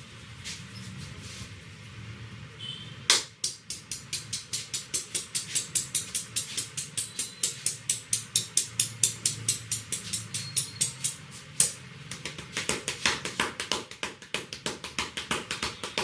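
Rapid rhythmic slapping of hands on the head during a head massage, about four slaps a second, starting about three seconds in. A louder slap opens the run and another comes about halfway through.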